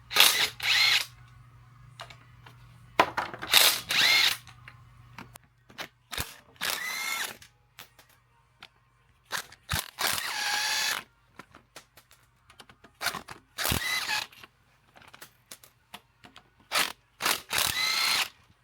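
Cordless power tool running in short bursts, about seven times, its motor pitch rising and falling as it backs out the engine's girdle bolts. A few sharp clicks come between the bursts.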